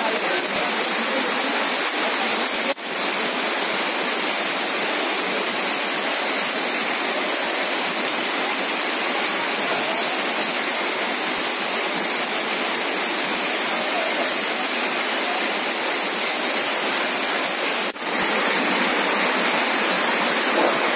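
Heavy rain pouring down: a loud, steady, dense hiss that dips for a moment twice, about three seconds in and near the end.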